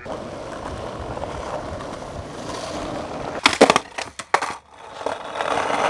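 Skateboard wheels rolling on pavement, then a quick series of sharp clacks about three and a half seconds in as the board pops and strikes during a trick at a wall. After a brief hush the wheels roll again, louder, near the end.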